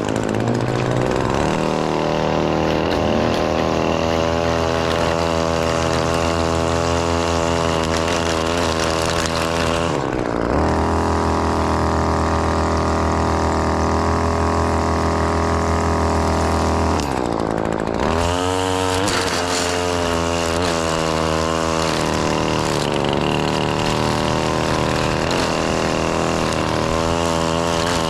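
The two-stroke engine of an ECHO SRM-2620T string trimmer runs under changing throttle while cutting grass. It speeds up about ten seconds in and holds a steady high pitch, then drops and wavers in pitch shortly after seventeen seconds.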